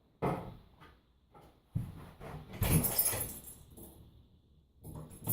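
Knocks and handling clatter, a few sharp thuds with a louder, hissy burst of noise about halfway through.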